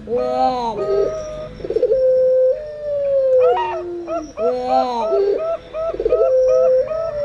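Doves cooing over one another: puter pelung (barbary doves) giving long, falling, howl-like coos, mixed with zebra doves (perkutut) cooing in quick runs of short, higher notes. The calls come in a pattern that repeats about every three and a half seconds.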